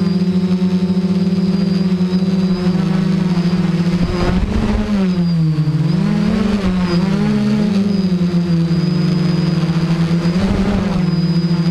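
FPV quadcopter's electric motors and propellers buzzing steadily, heard from its onboard camera. Their pitch dips and rises several times around the middle as the throttle changes, with short rushes of wind noise about four seconds in and near the end.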